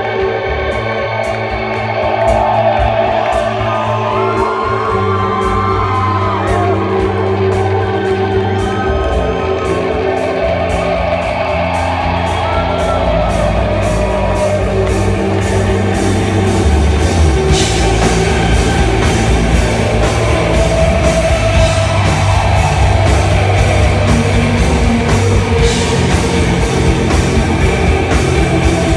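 Live rock band playing an instrumental intro: electric guitars and bass holding sustained notes over drums, the drumming getting busier and the whole band louder a little past halfway.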